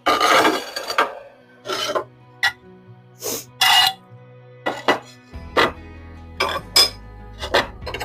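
Fired ceramic ware clinking and scraping as pieces are lifted out of a kiln: a longer scrape in the first second, then a string of separate clinks and knocks. Soft background music plays underneath.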